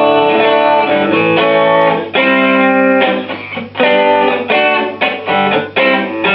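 Electric guitar (Stratocaster on its middle pickup) played through the Dirty Dog distortion pedal's lead channel, set to boost a clean amp tone. A few chords ring out, then quicker, shorter chord strikes start about three seconds in.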